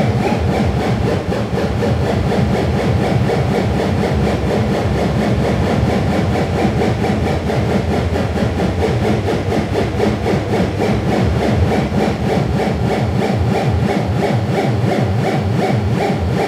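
Loud experimental noise music: a dense, rough, buzzing drone with a fast flutter, heavy in the deep range, holding steady throughout.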